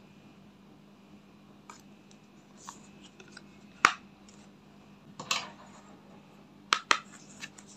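Scattered clicks and taps of makeup palettes and their cardboard packaging being handled, with a sharp click about four seconds in, a knock a little later, and two quick clicks close together near the end.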